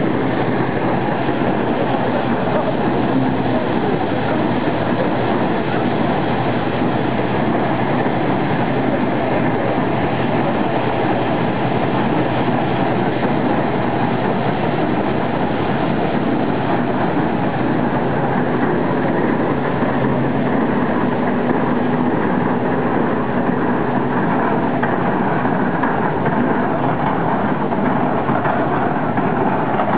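1907 Marshall threshing machine at work threshing sheaves, belt-driven by a 1906 Marshall 4 hp portable steam engine: a steady, even mechanical rattle and rumble from the spinning drum and shaking works.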